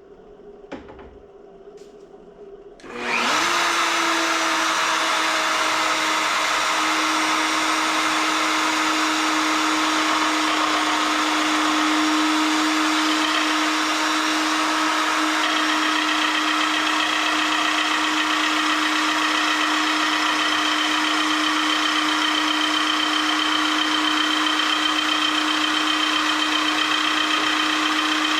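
Handheld wood router switched on about three seconds in after a few light handling clicks: its motor spins up quickly to a steady high whine and runs on evenly, mounted in a lathe jig to cut a turning scrap blank round.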